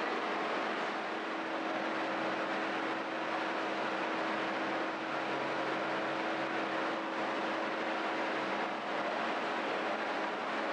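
Steady machine noise: a continuous rushing hiss over a constant low hum, without pauses or changes.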